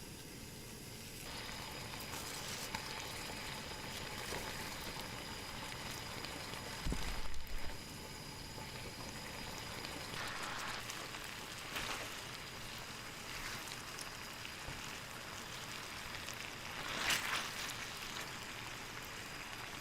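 Steady hiss of webfoot octopus (jjukkumi) cooking, with a few louder knocks and scrapes along the way.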